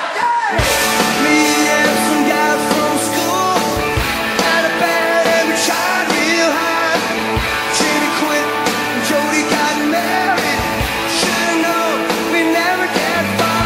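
Rock music with singing, guitars and a steady drum beat.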